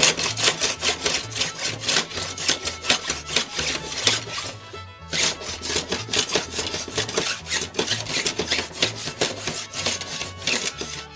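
Small block plane scraping along a glued bamboo rod blank in quick, short strokes, taking off excess glue; the strokes pause briefly about four and a half seconds in, then resume. Background music plays underneath.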